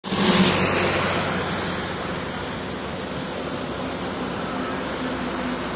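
A truck passes close by on a wet road, its tyres hissing on the water with a low engine hum, loudest about half a second in and fading over the next two seconds into a steady hiss.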